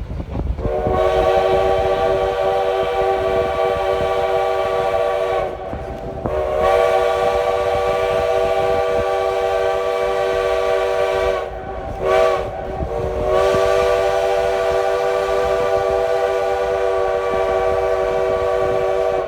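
Steam locomotive's chime whistle blowing two long blasts, a short one and a final long one, the grade-crossing signal, over the low rumble of the moving train.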